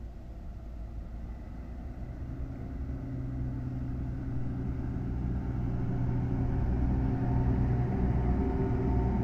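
JR Freight DD200 diesel-electric locomotive approaching and passing close by. Its diesel engine makes a steady low drone that grows steadily louder as it nears.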